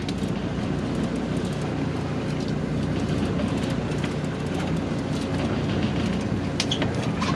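A steady, low mechanical rumble with a few faint clicks, as of a vehicle or engine running.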